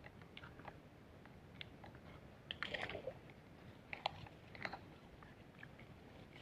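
A few faint splashes and small ticks from a hooked tilapia thrashing at the pond surface, busiest about three and four seconds in.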